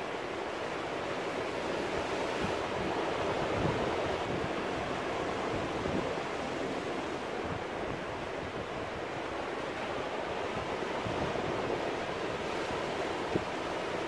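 Surf breaking and washing over rocks on a rocky shore: a steady rush of waves that swells and eases.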